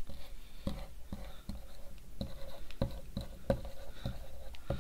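White marker writing on a blackboard: a run of short, irregular scratchy strokes and taps as a word is written out.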